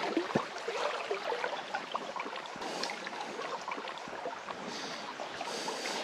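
Shallow stream water babbling and splashing over stones, a steady rush full of small irregular splashes, with one brief knock about half a second in.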